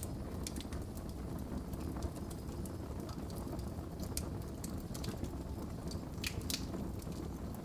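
Wood fire crackling in a fireplace: a steady low rumble of flames with irregular sharp pops and snaps, a few louder ones together about six seconds in.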